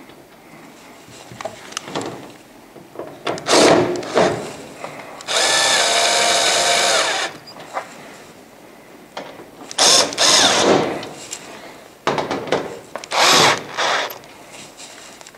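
Cordless drill with a Phillips bit driving screws into a dehumidifier's rear cover: several short bursts of the motor and one steady run of about two seconds near the middle, with clicks and handling between.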